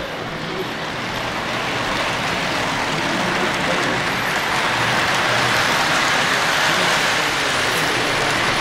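Model train rolling past close by, its diesel locomotive and freight cars making a steady running rumble and clatter on the track that grows a little louder.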